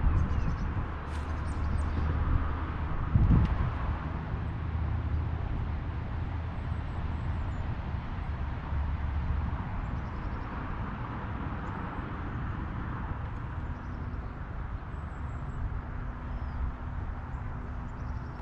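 Wind buffeting the microphone outdoors, a low rumble over a steady hiss that eases off about halfway through, with a single thump a little over three seconds in and faint bird chirps now and then.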